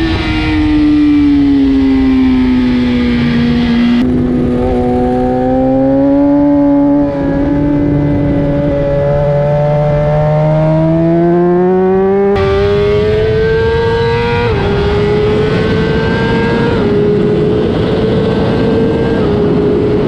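BMW S1000RR's inline-four engine on track. Its pitch falls as the bike slows into a long corner, then climbs as it drives out. It changes up three times in the second half, each shift a short dip in pitch.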